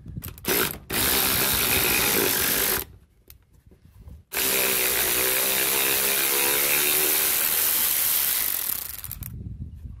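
Cordless electric ratchet running on the centre bolt of a riding mower wheel: a short blip, then two long runs with a brief pause between, its motor hum bending a little in pitch as the bolt turns.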